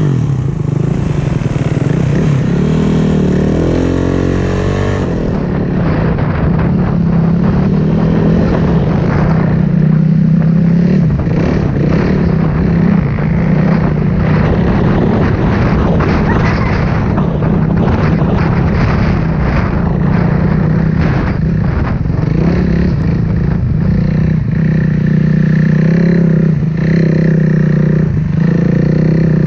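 450cc four-stroke single-cylinder dirt bike engine running hard under throttle, its revs rising about two to four seconds in and then rising and falling.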